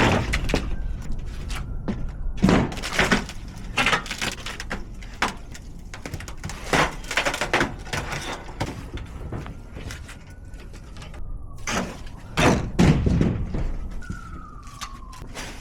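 Irregular metal clanks and thuds as the base frame of a metal shed is pried up and handled during demolition, in clusters of several knocks with pauses between.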